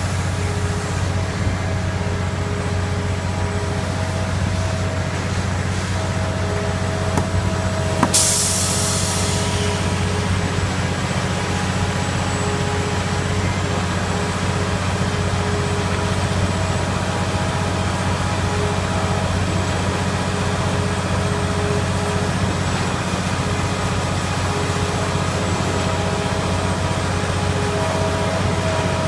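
Heavy diesel engine of a concrete truck running steadily, with a whine that comes and goes over its drone. About eight seconds in there is a short burst of hissing air that fades over a second or two.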